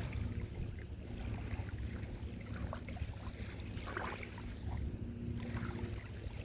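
Wind rumbling on a phone microphone, with a faint steady low hum from a distant engine.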